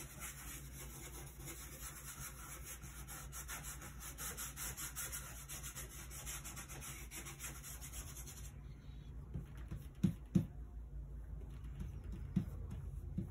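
Stiff-bristled 1-inch flat brush scrubbing oil paint onto a gessoed panel in quick back-and-forth strokes. The scrubbing stops about two-thirds of the way through, followed by a few soft knocks.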